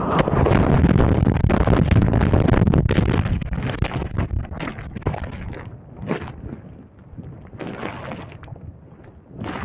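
Breaking surf whitewater rushing loudly over the phone for about four seconds, then churning, crackling turbulence as the phone is tumbled under the sandy water.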